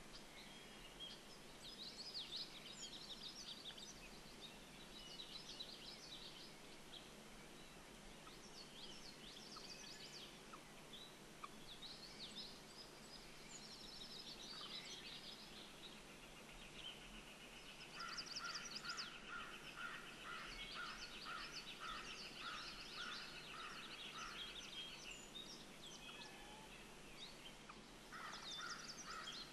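Faint songbirds chirping and singing. About halfway through, one bird gives a long even trill lasting several seconds, with a run of lower, evenly repeated call notes under it; the lower notes come back near the end.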